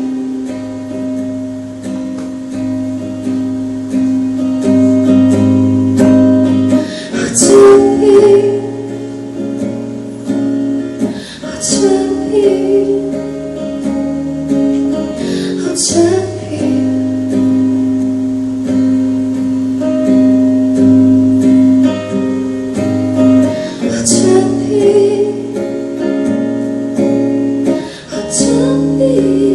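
Live song: strummed acoustic guitar with a female singer's voice.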